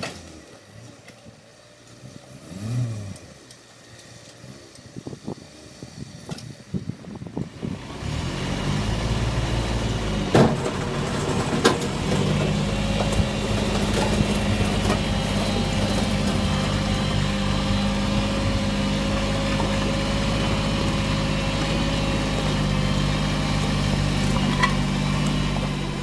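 Kubota B1820 compact tractor's three-cylinder diesel engine, faint at first, then coming in loud and running steadily from about eight seconds in. Two sharp knocks sound a few seconds after it comes in.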